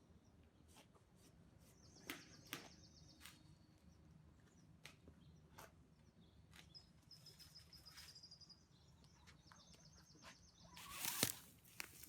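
Faint high trills from a small songbird, each a rapid run of repeated notes lasting about a second, heard three or four times, with scattered sharp clicks between them. A short rustling burst near the end is the loudest sound.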